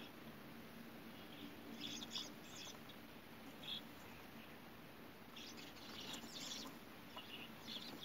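Common starling giving short, scratchy chirps in several bursts, heard through window glass.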